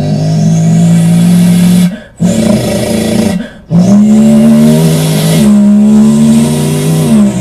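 A person's voice imitating a car engine, in three long buzzing bursts with short breaks between them. The last and longest burst rises in pitch at its start and drops off at its end, like a rev.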